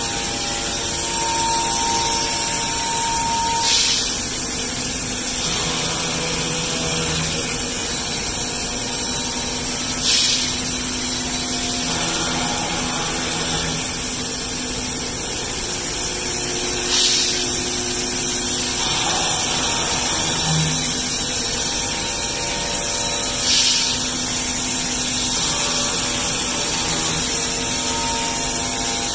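Pade Velox T2 five-axis CNC machining centre running as it machines wooden chair parts: a steady noise with several held tones, and a short hissing surge about every six to seven seconds.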